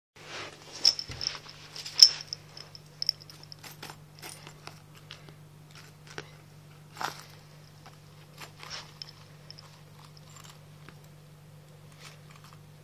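A cat rummaging through paper money: irregular rustling, crinkling and light taps, loudest in the first two seconds and once more about seven seconds in. A faint steady low hum runs underneath.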